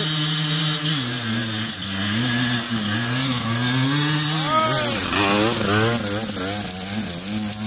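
Enduro dirt bike engine revving up and down as the rider rides up the trail, the pitch rising and falling repeatedly and growing busier as the bike passes close, about five seconds in.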